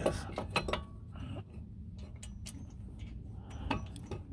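A few light metallic clicks and clinks, spaced unevenly, of small steel hardware such as lock washers and bolts being picked up and handled.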